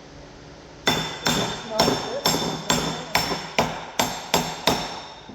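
About ten hammer blows, two to three a second, on a steel plate disc being driven down onto a combine arm. Each strike rings with a bright metallic tone.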